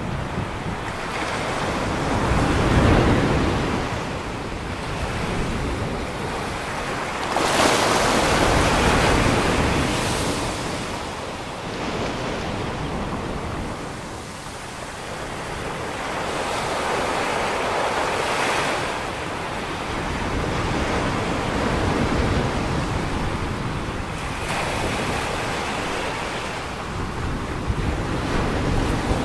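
Ocean surf breaking and washing up the shore, swelling and fading every few seconds; the biggest wash comes about eight seconds in.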